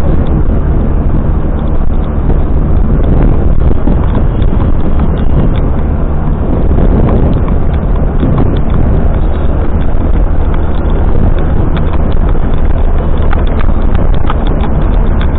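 Royal Enfield Bullet motorcycle's single-cylinder engine running on the move, a loud, steady, rapid, even beat.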